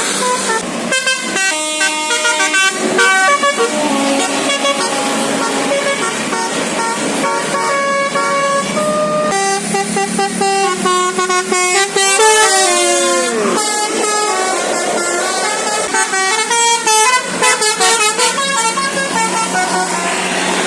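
Telolet basuri horn on a bus playing a tune: a quick run of loud horn notes, each stepping to a new pitch. Partway through, one note swoops up and then falls away.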